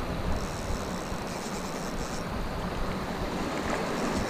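Steady seaside wind and wash of the sea, an even rushing noise with no distinct events.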